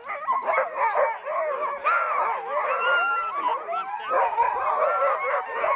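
A team of harnessed sled dogs barking and yelping together, many overlapping calls with no break between them: the excited din of a team eager to run.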